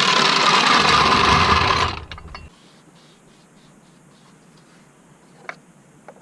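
Hydraulic vehicle lift letting down with a loud, even rushing hiss that cuts off about two seconds in, followed by a few faint clicks.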